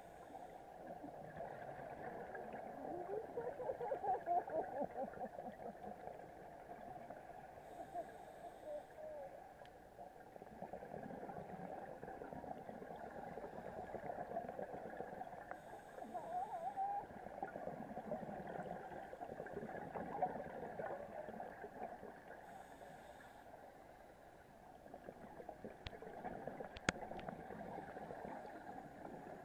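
Underwater ambience picked up by a diving camera: a steady droning hum with slowly wavering tones, a short hiss of bubbles every seven or eight seconds, and a couple of sharp clicks near the end.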